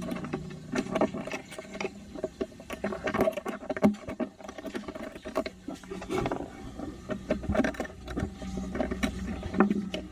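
Irregular clicks and light metallic taps of small metal parts of an automatic freewheeling hub's clutch assembly being handled and fitted together.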